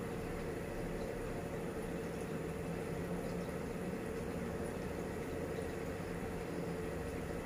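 Aquarium filter running: a steady motor hum under a constant wash of moving water.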